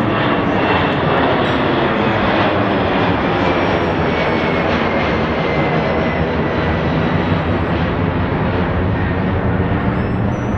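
Jet airliner's engines running, a loud steady roar with a faint whine that slowly falls in pitch.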